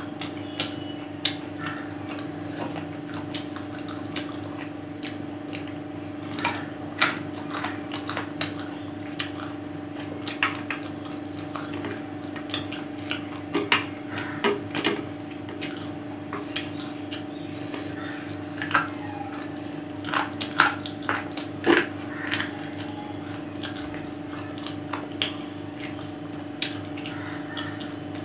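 Close-miked eating of biryani and chicken by hand: many short wet chewing clicks and smacks, with fingers working the rice on a plate, busiest in the middle of the stretch. A steady low hum runs underneath.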